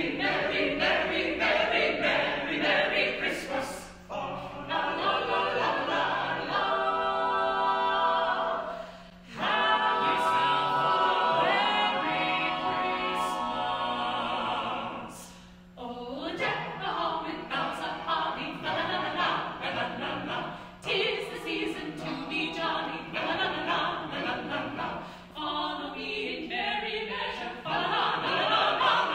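Small a cappella vocal ensemble singing in harmony without instruments, with long held chords in the middle stretch and brief breaks between phrases.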